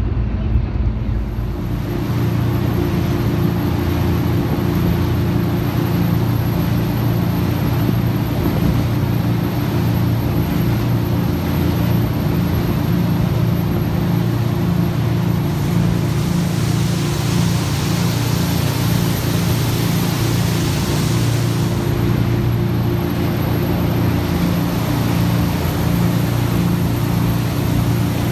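A tour boat's engine running steadily, heard from inside its windowed passenger cabin, with a hiss of water and wind that swells for several seconds past the middle. For about the first two seconds there is a different vehicle's ride rumble.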